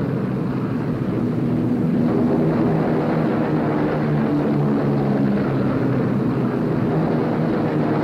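Four-engined B-17 Flying Fortress bomber, its radial piston engines and propellers droning steadily.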